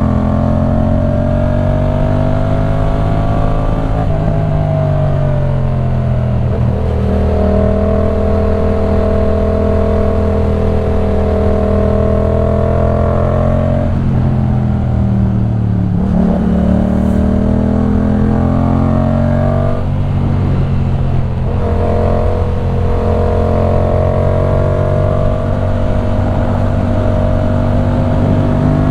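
The 2015 Yamaha MT-07's 689 cc parallel-twin engine, breathing through a LeoVince One Evo full exhaust system, runs under way. It holds steady revs for stretches, with its pitch dropping and climbing again about four seconds in, around sixteen seconds, and near twenty seconds.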